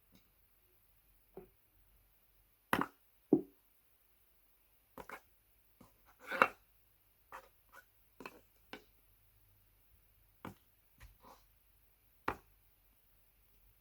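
Jiggly slime being squished and pulled close to a microphone, making short, irregular pops and clicks roughly once a second, the loudest a little past the middle.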